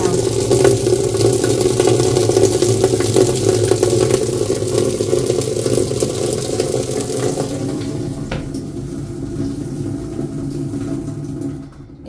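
Tap water pouring from the inlet into the empty plastic wash tub of a twin-tub washing machine: a steady splashing stream that grows a little softer over the last few seconds, then cuts off.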